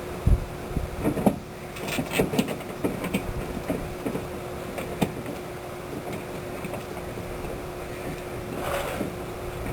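Scattered, irregular knocks and clicks over a steady hum.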